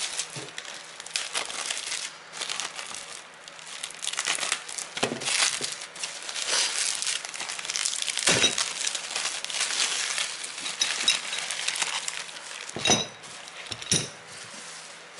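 Bubble wrap being handled and pulled open by hand, a dense run of crinkling and crackling. Near the end come two separate knocks as the bagged brake pads are set down on the bench.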